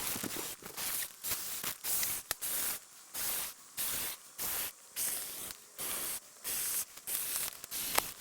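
Klymit Static V inflatable sleeping pad being blown up, air rushing into the valve in short, regular hissing puffs, about one and a half a second.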